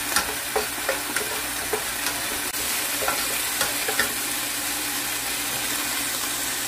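Chopped onions with spices and ginger-garlic paste sizzling in hot oil in a nonstick pot. For the first four seconds or so a plastic slotted spatula stirs them, scraping and tapping the pan several times. After that the sizzle goes on steadily.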